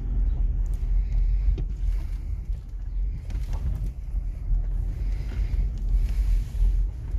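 Gusty dust-storm wind buffeting the microphone: a low, uneven rumble that swells and dips.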